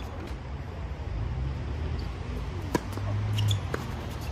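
Sharp pops of tennis balls on hard courts, two clear ones about a second apart near the end, over a low steady rumble.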